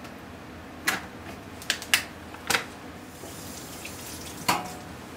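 About five sharp clicks and taps, irregularly spaced, as grapes are plucked from the bunch and dropped into a glass bowl. The loudest comes about two seconds in.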